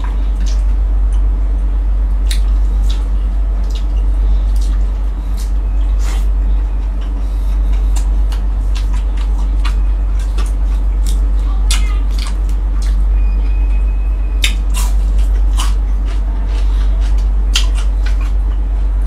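Close-miked eating sounds: a person chewing, with scattered wet lip-smacking clicks, over a steady low hum.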